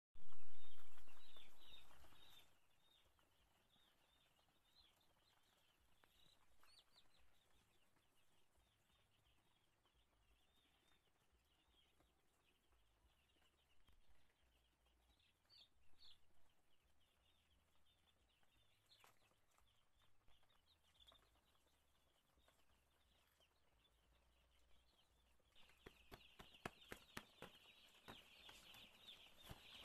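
A brood of day-old chicks peeping continuously in a stream of short high-pitched chirps. A loud noise at the very start fades away over about two seconds. Near the end the peeping grows louder and denser, mixed with a run of sharp clicks.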